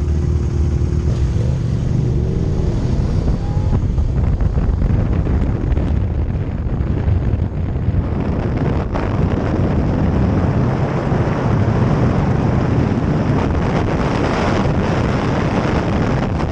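Wind rushing over the microphone on a moving motorcycle, with steady road and engine noise underneath.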